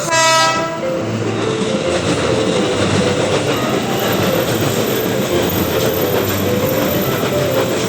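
A train passing close by: a brief loud tone in the first second, then the steady rumble and clatter of the wheels on the rails.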